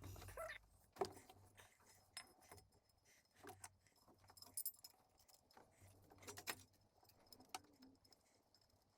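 Faint, scattered light clicks and clinks of small metal parts or tools being handled, about one every second, over a faint low hum.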